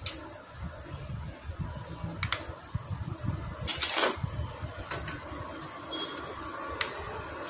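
Metal hand tools clicking and clinking against the open cylinder head and rocker arms of a Honda Dio scooter engine: a few single clicks, with a louder cluster of clinks about halfway through, over a steady low hum.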